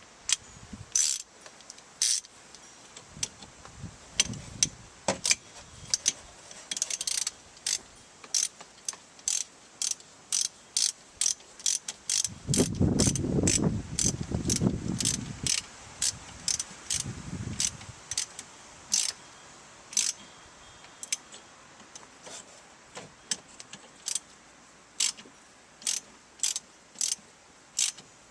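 Hand socket ratchet being worked to run a nut or bolt on the strut assembly, its pawl clicking in short sharp bursts about once or twice a second. A louder, duller sound lasts about three seconds in the middle.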